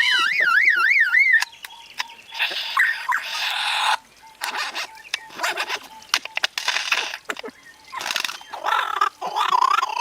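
A lyrebird mimicking man-made sounds: a fast warbling car-alarm siren at the start, then a string of clicks and rattling bursts like camera shutters, and near the end short sweeping laser-gun-like zaps.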